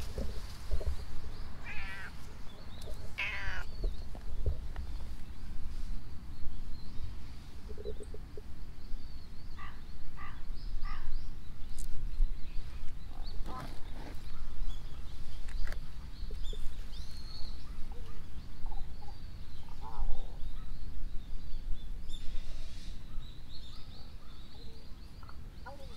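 Tabby cat meowing several times in short calls, the clearest about two and three seconds in, over a steady low rumble.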